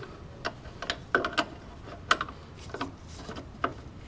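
Irregular light metal clicks and clinks of an open-end wrench being fitted against the shock absorber's top stud and nut, about ten in a few seconds.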